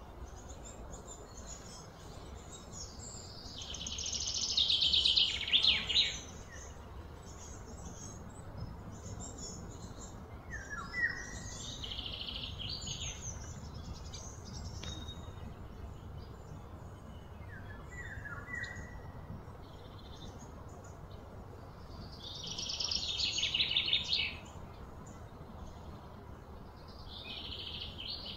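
Birds chirping, with short downward-sliding calls now and then and, twice, a loud rapidly pulsing high trill that swells and fades over a couple of seconds, about four seconds in and again a little past twenty seconds in.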